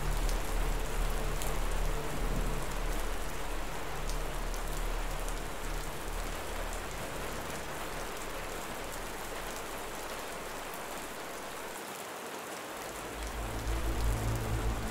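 Steady rain ambience, a dense even hiss of falling rain with faint, scattered drop ticks. A low steady drone fades out early on and swells back in near the end.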